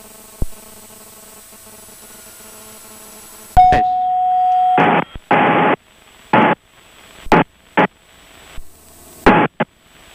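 Cockpit radio and intercom audio in a Cessna 172: a steady low hum, then a click and a steady tone lasting about a second, about three and a half seconds in. Several short, clipped bursts of radio transmission follow.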